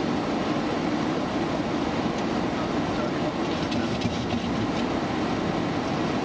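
Steady rushing cockpit noise of a Boeing 737 on approach: air streaming past the nose and windscreen over the hum of the engines. A few faint clicks come through about two to four seconds in.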